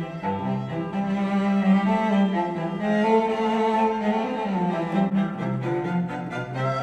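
Classical music with bowed strings, played back through JBL 306P MKII studio monitors and picked up by a microphone in the room. Near the end the playback switches to Focal Alpha 80 monitors.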